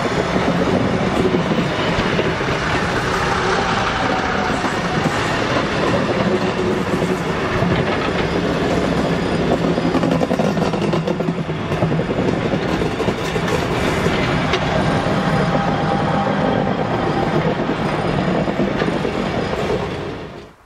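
Esslinger diesel railcar train passing close by, its underfloor diesel engines running with a steady hum under the rumble and clatter of the wheels on the rails. The sound stays loud and even, then cuts off sharply near the end.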